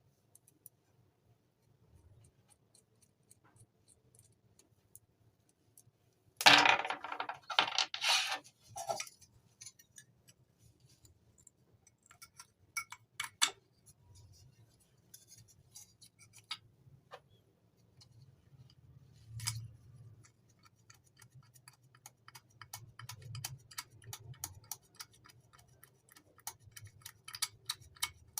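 Scattered clicks and light taps of small hard parts being handled, some in quick runs. About a quarter of the way in comes a loud, rough, noisy burst of about two and a half seconds, broken into several pieces.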